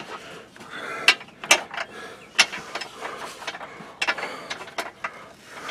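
Stubby 13 mm wrench working a hard-to-reach bolt: a run of irregular metal clicks and clinks of ratcheting and tool against bolt.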